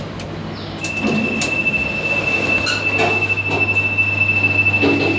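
Old express lift car running with a steady low hum. About a second in, a single steady high-pitched beep starts and holds, over scattered clunks and rattles of the car.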